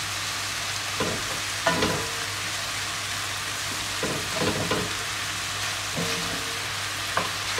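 Chicken liver, gizzards and hearts sizzling in a cast iron skillet while a wooden spatula stirs them, scraping and knocking against the pan several times. A steady low hum runs underneath.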